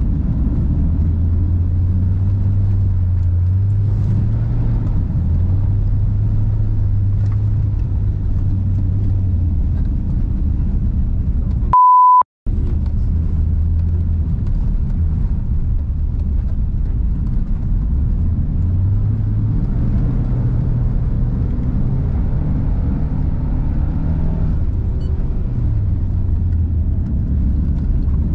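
Subaru Forester SJG's turbocharged flat-four engine running hard, its pitch rising and falling every few seconds with throttle and gear changes. About twelve seconds in, a steady high beep lasts about half a second, then the sound cuts out briefly.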